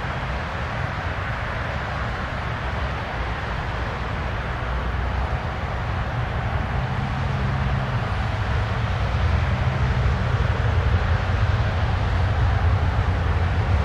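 Jet engine noise from an Air Canada Airbus A320-214 with CFM56 turbofans: a steady rushing roar that grows louder, with a deeper rumble building about halfway through.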